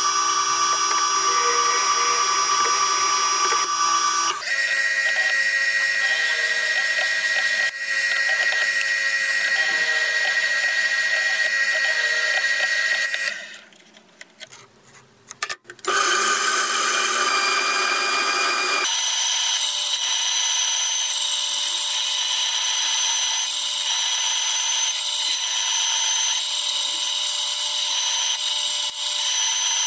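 Electric power tools running with a steady high whine, in several short clips cut together. The tool sound changes abruptly about four, thirteen, sixteen and nineteen seconds in, with a brief quiet gap near the middle.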